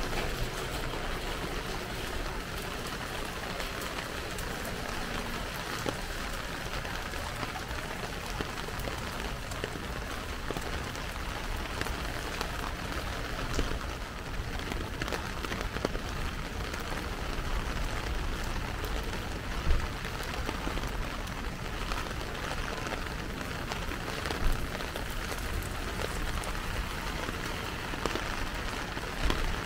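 Heavy rain falling steadily on pavement and surfaces. A few sharper taps stand out above the hiss now and then.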